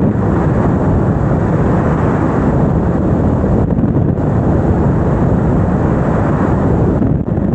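Loud, steady rumble of wind buffeting the microphone, with no clear engine note.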